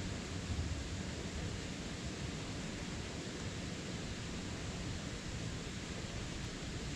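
Steady, even rushing noise with no distinct events and no motor tone: the background noise picked up by the crashed FPV drone's camera microphone while it lies still in the plants.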